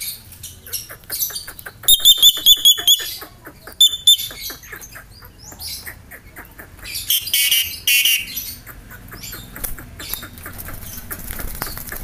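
Caged Javan myna calling: a quick run of high repeated notes about two seconds in and a shorter run near four seconds, among a rapid series of clicks, then loud harsh squawks around seven to eight seconds.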